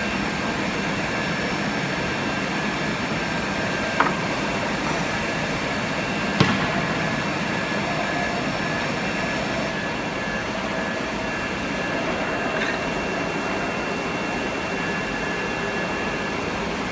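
ATC CNC router with a gang drilling head running: a steady machine noise with high steady whines, and two sharp knocks about four and six seconds in.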